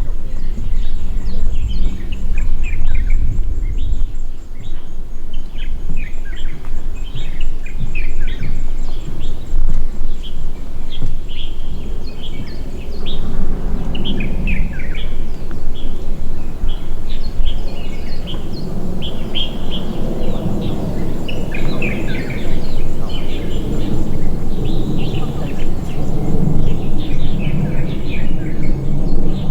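Many small birds chirping in quick, short, high calls throughout, over a steady low rumble of background noise.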